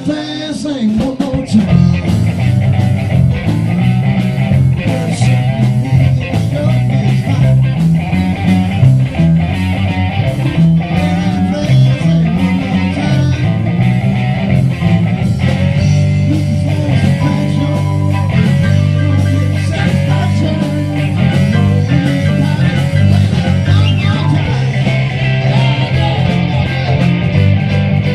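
Background rock music led by guitar over a steady, repeating bass line.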